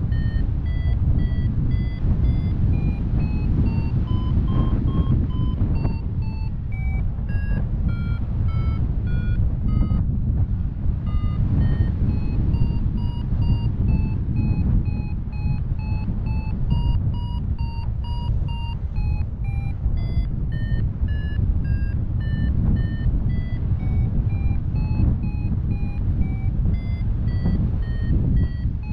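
Paraglider variometer beeping in a quick string of short tones whose pitch climbs and falls as the climb rate changes, signalling the glider is climbing in lift. Heavy wind rush on the microphone runs underneath and is the loudest sound.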